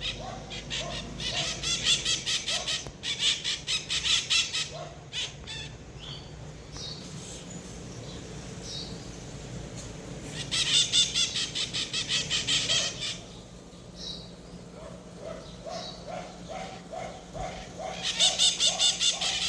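Wild birds calling: several bouts of fast, high, scratchy chattering, each lasting one to three seconds. Near the end comes a lower note repeated quickly, about eight times a second.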